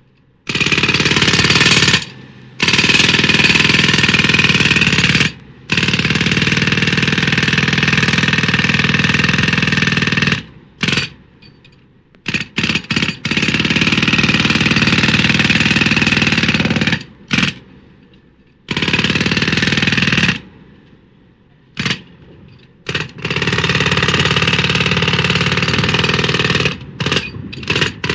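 Pneumatic jackhammer hammering in runs of several seconds that stop and start again, with a few short spurts between the longer runs.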